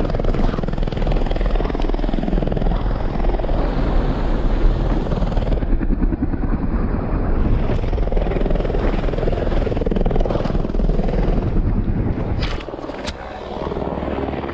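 Wind buffeting a helmet-mounted camera's microphone as a snowboard rushes through deep powder snow, a heavy rumbling hiss. About 12.5 s in it drops quieter, with two sharp knocks.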